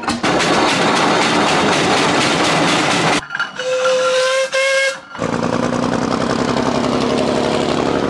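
A steam traction engine's whistle, one clear pitched tone held for about two seconds in the middle, between stretches of loud, even rushing noise.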